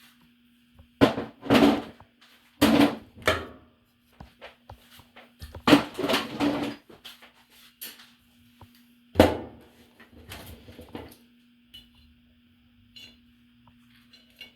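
Objects being picked up and set down on a work table, a string of sharp knocks and clatters in several clusters, with a faint steady hum underneath.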